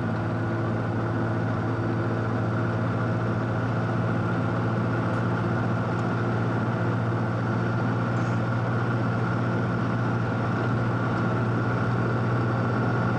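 A vehicle's engine running steadily, heard from inside the cabin: a constant low hum with a few fixed tones above it.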